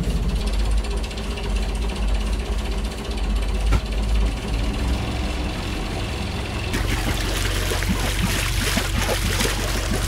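A sailboat's inboard engine running with a rattling mechanical clatter. About seven seconds in, a steadier hum and a hiss join in.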